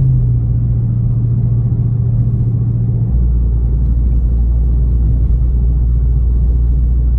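2018 Dodge Charger R/T's 5.7-litre Hemi V8 heard from inside the cabin while cruising: a steady low drone that drops abruptly to a deeper hum about three seconds in.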